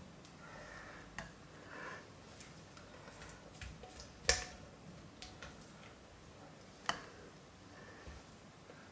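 Quiet handling of a spatula and containers at work on soap paste: scattered light clicks and knocks, the sharpest about four seconds in and another near seven seconds.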